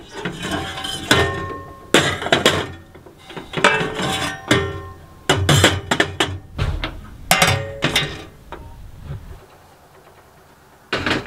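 Stainless-steel stove-pipe sections clinking and clanking against one another and a glass tabletop as they are handled, each knock ringing briefly. About a dozen knocks come at uneven intervals, then it goes quieter, with one more knock near the end.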